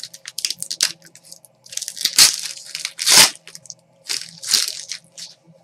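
Trading card packs being torn open and the cards handled: a run of crinkling, tearing rustles, loudest about two and three seconds in, over a faint steady hum.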